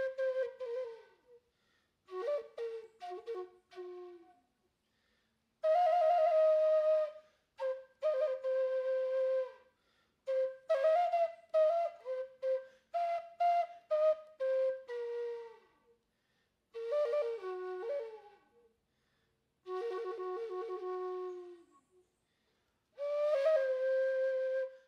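Solo flute playing a slow, unaccompanied melody in phrases a few seconds long, separated by short pauses, several phrases ending in a falling slide.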